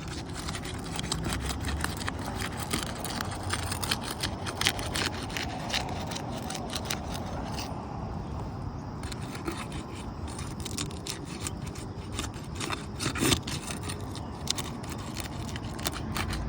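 Old 3-tab asphalt shingles being unsealed: continuous scraping and rubbing with many small clicks as the tabs are worked loose from their sealant strips.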